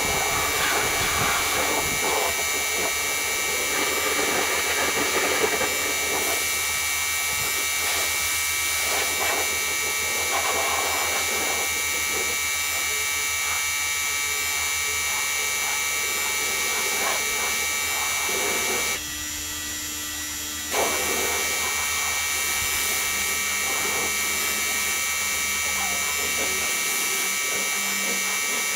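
Small electric motor buzzing steadily, dropping out for about two seconds roughly two-thirds of the way through, then starting again.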